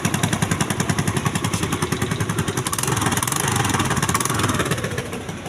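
Honda Activa 3G scooter's single-cylinder four-stroke engine running with a loud, rapidly pulsing exhaust, a little quieter near the end. The silencer is rusted through with several holes, which makes the exhaust very loud.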